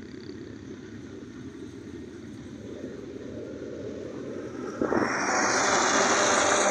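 Freight train wagons rolling past with a steady low rumble of wheels on rails. About five seconds in, a tractor passing close by comes in suddenly and is much louder than the train.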